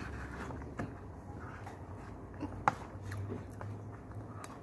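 Metal spoon and fork clicking and scraping against a disposable plate while cutting food, with a few sharp clicks, the loudest a little past halfway.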